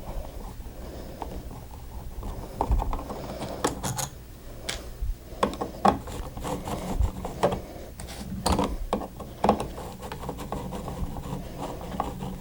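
A screwdriver backing out a wall switch's mounting screws and the switch being worked loose in a plastic box: irregular clicks, taps and scraping of metal and plastic.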